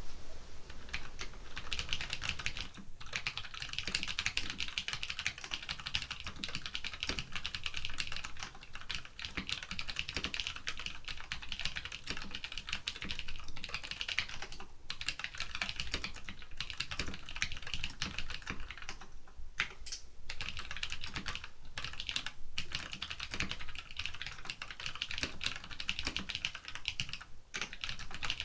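Typing on a WASD CODE 87-key mechanical keyboard with Cherry MX Clear tactile switches and low-profile ABS keycaps: fast, continuous keystrokes, broken by a few brief pauses.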